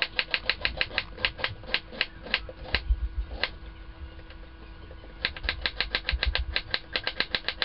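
Kitchen knife rapidly slicing white cabbage into fine shreds on a wooden chopping board: quick taps of the blade on the board, about six a second, with a pause of under two seconds midway before the chopping resumes.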